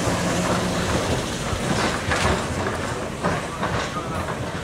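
Vintage electric tram running on street track, with a low rumble and hum and irregular clicks from the wheels on the rails, getting a little quieter as it moves away.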